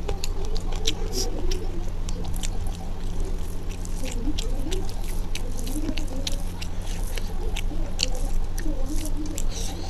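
Close-miked eating: wet, irregular smacking and chewing clicks of a mouthful of rice and curry, with fingers squishing and mixing rice on a steel plate, over a steady low hum.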